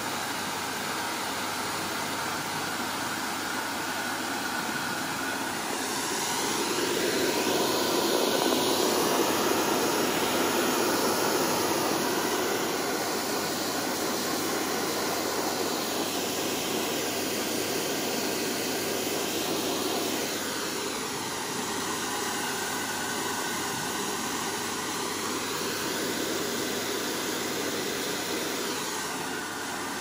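Handheld hair dryer running continuously, a steady rush of blown air whose tone sweeps up and down as the nozzle is moved about, louder from about seven to twelve seconds in.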